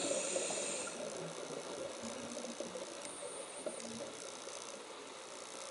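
Underwater ambience heard through a camera housing: a faint, steady crackling and clicking, with a rumble of bubbles dying away in the first second.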